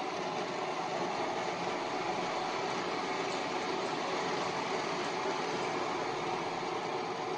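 Cotton candy machine running, its spinning head whirring steadily as pink sugar floss is spun out and wound onto a stick.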